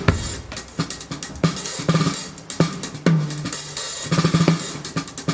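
Drum kit playing a steady groove: kick, snare, hi-hat and cymbals, with low drum hits that ring on briefly about once a second.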